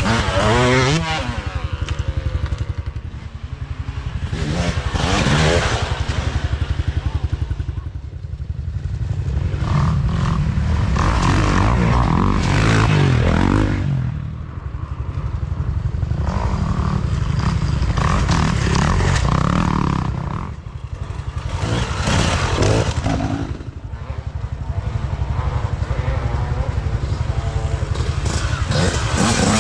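Dirt bike engines revving hard as several riders come past one after another, each swelling and fading, with the pitch rising and falling through the gears.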